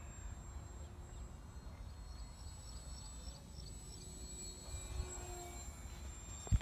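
Wind rumbling on the microphone, with the faint drone of a radio-controlled model airplane's motor rising and falling as it flies overhead, and one sharp tap near the end.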